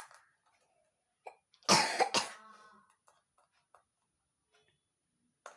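A person coughing twice in quick succession, about two seconds in, with a few faint clicks around it.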